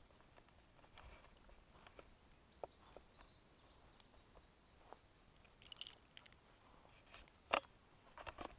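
Quiet woodland: a few faint, high bird chirps, and scattered sharp ticks and snaps, the loudest about seven and a half seconds in.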